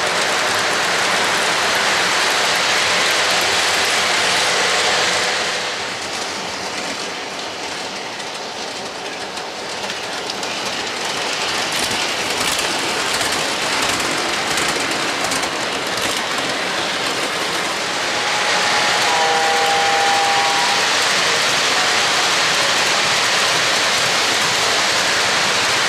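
Three-rail O-gauge model trains rolling on the track layout: a steady rush of metal wheels on rail with clickety-clack over the track joints. There is a run of fine ticking about halfway through, and a short pair of steady tones about two-thirds of the way through.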